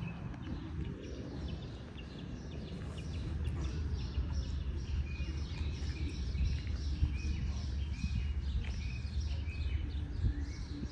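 Birds chirping in short repeated calls over a low steady outdoor rumble.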